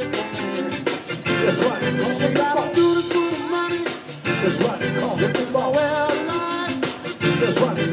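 Zydeco band playing live through a PA: accordion, electric guitars, keyboard, bass and drums over a steady dance beat.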